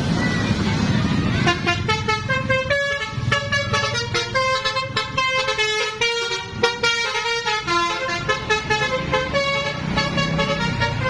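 Basuri telolet bus horn playing a fast tune of several horn tones at once, changing note every quarter second or so, starting about a second and a half in over the noise of the bus.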